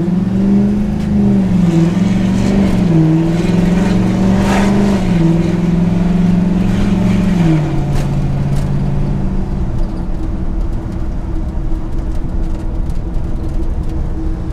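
A Chevrolet squarebody pickup's 6.0 L Gen 4 V8 pulling hard, heard from inside the cab. Its pitch rises and dips in the first few seconds, steps down about five and seven and a half seconds in, then eases off to a low steady drone with road noise after about ten seconds.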